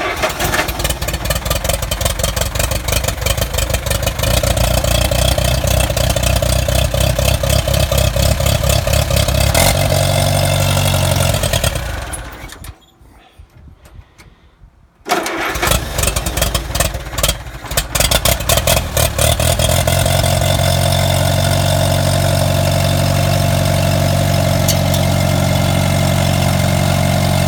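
Allis-Chalmers Model B tractor's four-cylinder gasoline engine starting up, the first time it has run in a couple of years after new plugs and cleaned points. It dies about twelve seconds in, catches again a few seconds later, runs unevenly, then settles into a steady idle.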